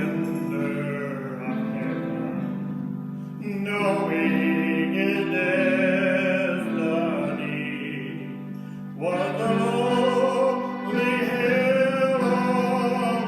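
Slow gospel song: a male singer holding long phrases over sustained accompaniment chords. The voice comes in about three and a half seconds in and again at about nine seconds.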